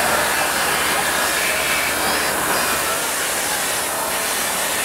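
Belt-driven jade polishing spindles run by electric motors, whirring steadily as stones are ground and polished against spinning discs. It is an even, unbroken hiss.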